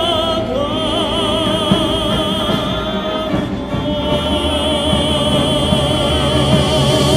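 Operatic-style music: long held melody notes with a wide vibrato over orchestral accompaniment, the melody stepping up to a new note about half a second in.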